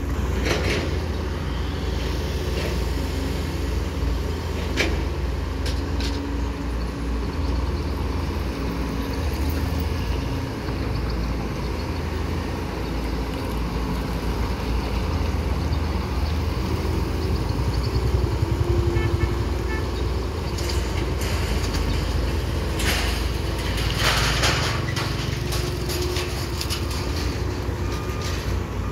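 Hydraulic excavators' diesel engines running steadily, the nearest a Hitachi, with a few sharp knocks and scrapes, the loudest a cluster over about two seconds late on.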